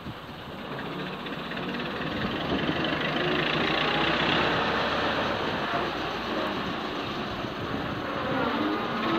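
Ruston diesel shunting locomotive's engine running as the locomotive approaches slowly, growing louder as it comes closer. Near the end a rising whine sets in.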